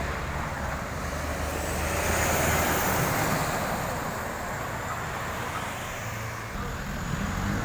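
Road traffic going by: a vehicle passing with engine rumble and tyre noise, swelling to a peak about two to three seconds in and then easing off.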